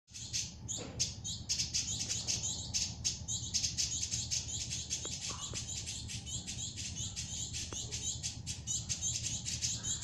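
Caged village indigobird singing a fast, continuous run of short high chirps, about four to five a second, over a steady low hum.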